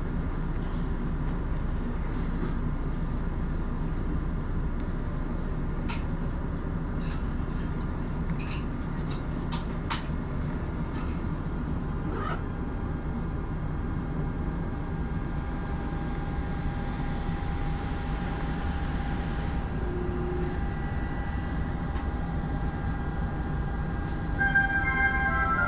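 Tokyo Metro 02 series subway train standing at an underground platform, its equipment giving a steady low hum, with a few faint clicks. Near the end a platform chime melody begins, the start of the departure announcement.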